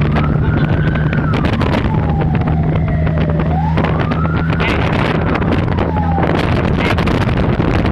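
Fire engine siren wailing in slow rises and falls while responding to a fire call, over the steady drone of the truck's engine and wind buffeting the microphone.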